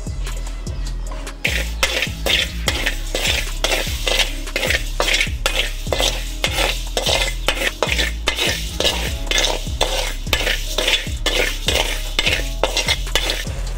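A metal spatula scraping and stirring raw rice grains around a dry steel wok as the rice is dry-roasted, in quick repeated strokes with a rattle of grains. The strokes start about a second and a half in.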